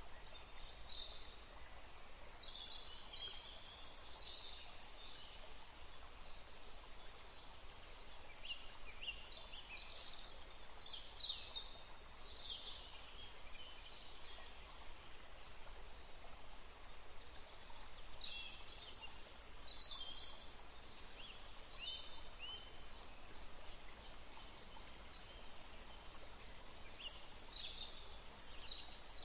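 Faint outdoor ambience of birds chirping: short high calls come in scattered bursts over a steady low background hiss.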